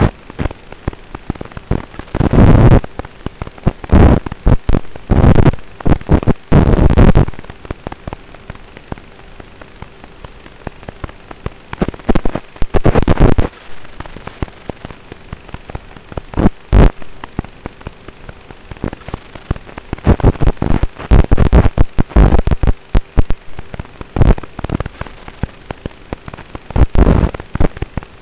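Onboard audio of an FPV plane in flight: loud, irregular bursts of crackling noise come and go in clusters every few seconds, over a faint steady hum.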